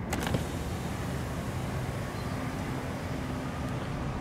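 A short click, then the power windows of a 2022 Mercedes-Benz GLB lowering together after the key fob's unlock button is held. A faint steady motor hum sits over steady outdoor background noise.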